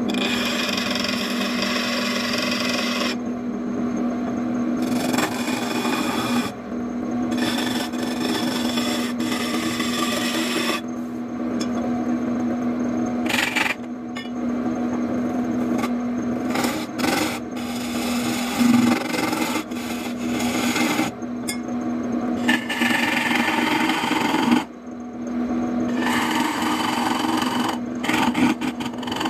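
Wood lathe running with a steady hum while a hand chisel is held against the spinning wooden cylinder, its cutting a scraping rasp that comes and goes over several passes.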